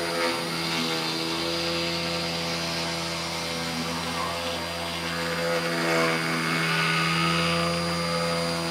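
A 48 V, 400 W DC CNC spindle motor runs steadily at about 5,000 RPM under PWM speed control, driving a 1/8-inch Dremel bit that mills a pocket in aspen. The sound is a steady motor hum with a hiss, growing louder and brighter from about six seconds in to near the end.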